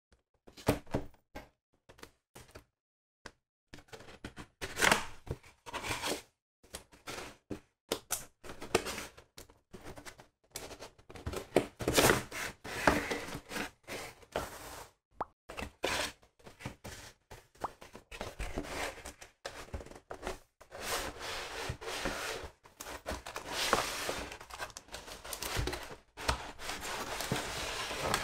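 Cardboard toy packaging being handled and opened: a run of taps, knocks and thumps of cardboard against a wooden table, with the box sliding and scraping more steadily in the last several seconds.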